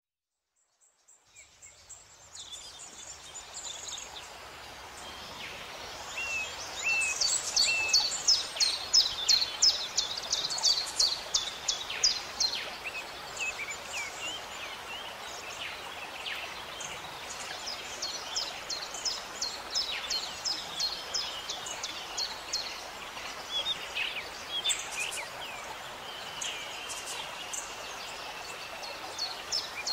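Songbirds singing over a steady outdoor hiss, in rapid runs of short, high notes several a second. It fades in over the first couple of seconds, and the busiest runs come about a quarter of the way in and again past the middle.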